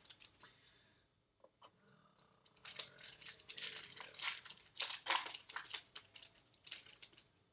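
Foil wrapper of a Bowman baseball card pack being torn open and crinkled by hand. There are a few faint ticks at first, then a run of crackly rustles from about two and a half seconds in until near the end.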